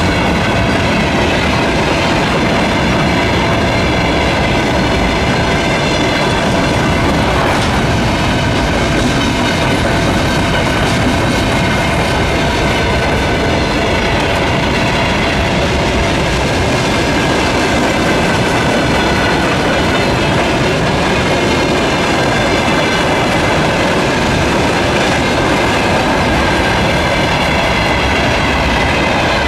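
Freight wagons rolling past at speed: a steady loud rumble of steel wheels on the rails, with some clattering over the track. A steady high-pitched whine sits over the top.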